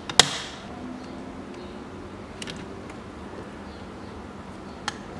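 A sharp metallic click just after the start as pliers work the hose clamp off the power-steering reservoir's hose, then a couple of faint ticks of handling over a low steady background hum.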